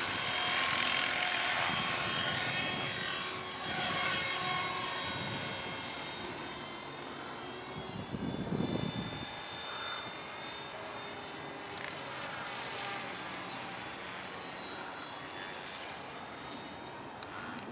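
Align T-Rex 450 electric RC helicopter flying, with the high-pitched whine of its motor and gears over the whir of its rotor blades. The sound is loudest in the first few seconds and fades as the helicopter climbs away high overhead.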